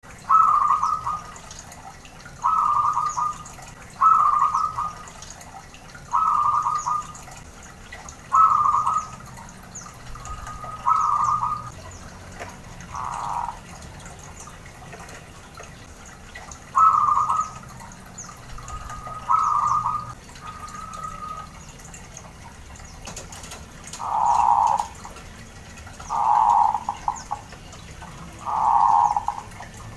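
Zebra dove (perkutut) cooing: short rolling coos, about one every two seconds, with a pause in the middle. The last three calls are lower and fuller.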